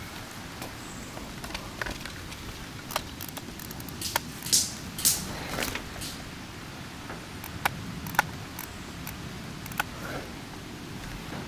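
Movement through woodland undergrowth: scattered sharp snaps and clicks of twigs and dry leaves underfoot, with two louder crackling rustles of brush about halfway through.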